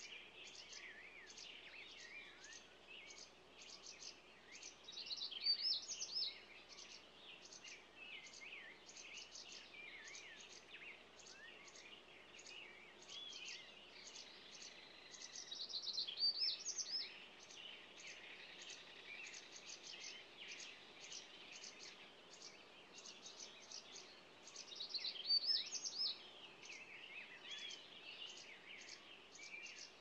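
Small songbirds chirping steadily in quick short notes, with three louder warbling song phrases spaced about ten seconds apart.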